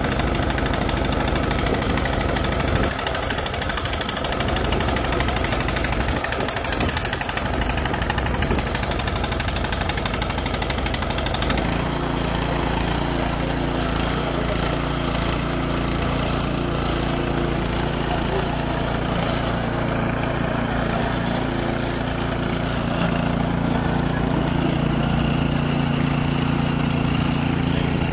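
Two-stage gas snowblower engine running; about twelve seconds in a steady low engine hum settles in and holds.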